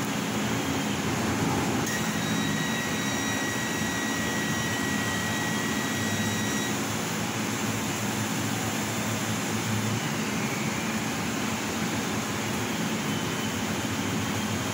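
Bao Yuan Tong CNC laser cutting machine running while it cuts: a steady fan-like rush, with faint whines that rise and fall as the cutting head moves. A steady high whine of several tones sounds from about two seconds in until about seven seconds in.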